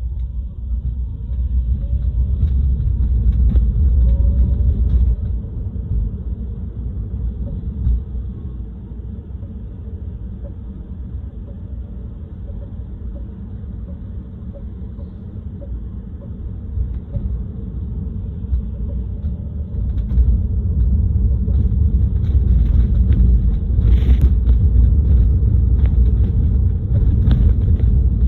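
Road and tyre rumble of a Tesla Model 3 driving at about 20–25 mph, a loud low drone that swells about two seconds in and again over the last third, with a few sharp knocks near the end.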